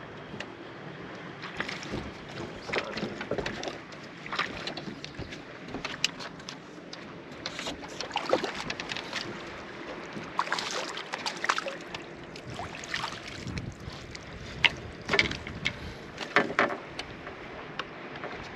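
Water lapping against a fishing boat's hull, broken by many scattered, irregular knocks and clatters from people and gear moving about the boat deck, the loudest near the end.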